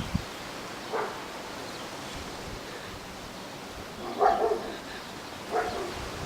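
Three short calls, one about a second in and two more near four and five and a half seconds, over a steady background hiss.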